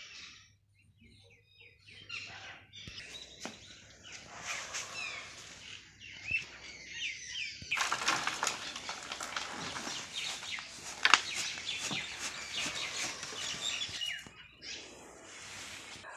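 Small birds chirping and twittering, sparse at first and then a dense, louder chorus of chirps and short clicks through the middle, with one sharp click standing out about two-thirds of the way through.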